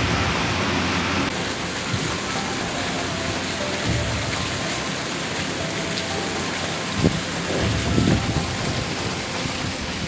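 Steady rushing water of a mountain stream, with faint background music and two dull thumps about seven and eight seconds in.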